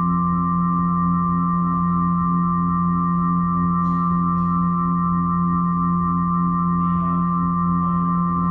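Ambient drone music: several steady held tones, a deep one underneath and brighter ones above, with one tone wavering in an even pulse. Two faint clicks come about four seconds in.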